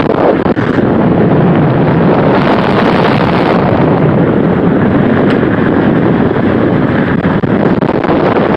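Steady, loud rush of wind on the microphone with tyre and road noise from a car driving at speed.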